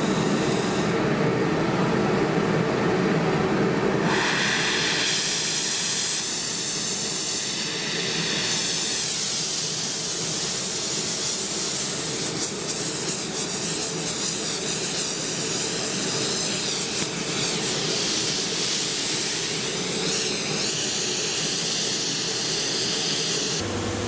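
Gas torch flame hissing steadily as it preheats a steel die block before hardface welding; the hiss changes character about four and again about eight seconds in. Near the end it gives way to a lower steady hum.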